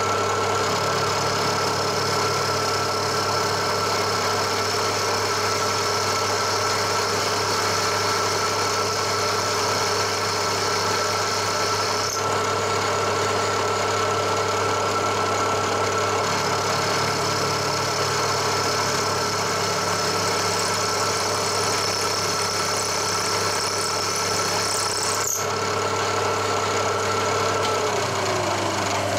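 Milling machine spindle running a freshly resharpened four-flute carbide end mill through a cut in hard steel: a steady machining whine with a low hum and a higher singing tone. Near the end the higher tone stops and the lower tone slides down in pitch.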